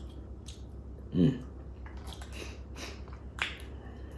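Cooked crab shell cracking and being picked apart in several sharp clicks, with a short hum from the eater about a second in.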